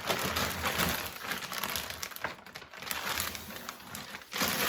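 Plastic bag crinkling and rustling as it is handled, a dense run of crackles that grows louder near the end.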